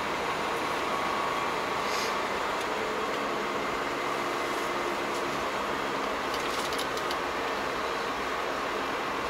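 Steady road and tyre noise heard from inside a moving car's cabin, tyres running on wet asphalt.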